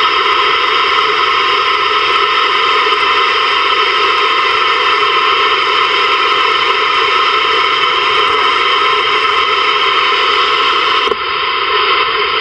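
Static hiss from a Ranger VR-9000 CB/11-meter receiver tuned between stations during a band scan, with no signal coming through. About eleven seconds in, the hiss drops a little and turns duller.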